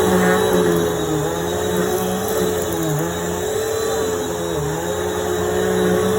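Bissell PowerForce Helix upright vacuum cleaner running loud, its motor whine steady but dipping briefly in pitch now and then.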